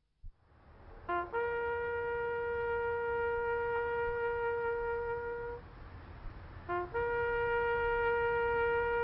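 A lone brass horn playing two long held notes, each begun with a short step up from a lower note. The first comes in about a second in and breaks off a little past halfway; the second follows about a second later and holds. A low rumble runs underneath.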